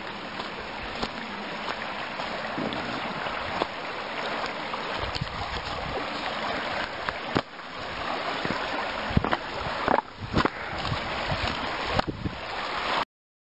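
Small rocky brook running, a steady rush of water, with scattered crunches of twigs and dry leaves underfoot as someone walks down to it. The sound cuts off suddenly near the end.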